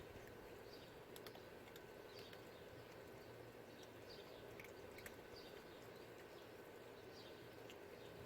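Near silence: faint outdoor ambience with a small bird chirping softly about once a second, and a few scattered faint clicks.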